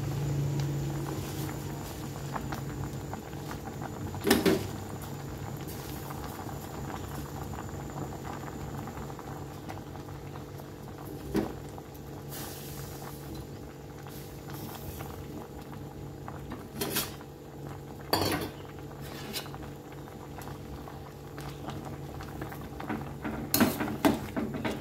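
A pot of soup at a rolling boil, bubbling steadily. A few sharp knocks and clinks of a metal ladle against the stainless steel pot, the loudest cluster near the end.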